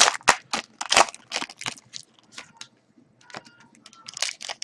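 Foil-wrapped trading card packs crinkling and clicking as they are handled and stacked: a quick run of sharp crackles for about two seconds, a short lull, then a few softer clicks.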